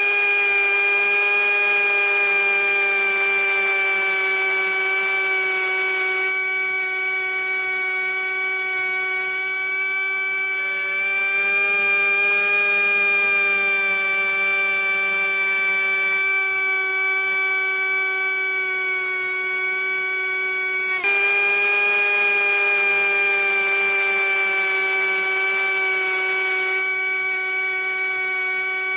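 Small electric motor running with a steady high whine, with a brief dip in pitch about twenty seconds in.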